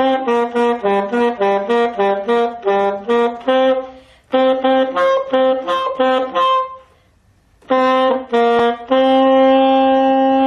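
Solo saxophone played by a learner after about a week of practice: a melody of quick short notes that breaks off twice and ends on a long held note. It comes out fairly well but not yet clean at one transition.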